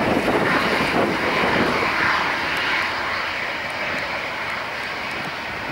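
Airbus A319-111's twin CFM56 jet engines running loud as the airliner rolls along the runway. The sound is a dense, steady jet noise, strongest in the first couple of seconds and easing slightly toward the end as it moves away.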